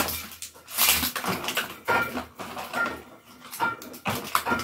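A large cardboard advent-calendar box being handled and its perforated door pulled open: irregular rustling, scraping and tearing of card, with a few short squeaks.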